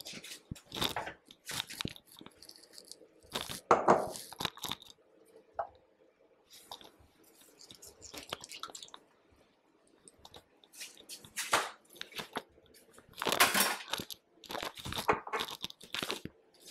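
Kitchen handling noises: scattered knocks, clatters and rustles as glass bowls and ingredient containers are moved and set down on a countertop, loudest about four seconds in and again near the end.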